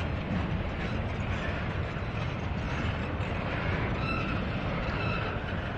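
Double-stack container well cars of a long intermodal freight train rolling past, a steady rumble of wheels on rail, with two brief high squeals near the end.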